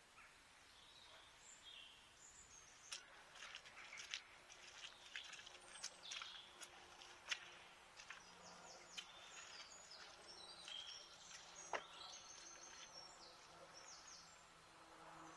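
Faint woodland birdsong: many short high chirps and trills from several small birds, with a few sharp clicks, one louder about twelve seconds in, and a faint low steady hum beneath.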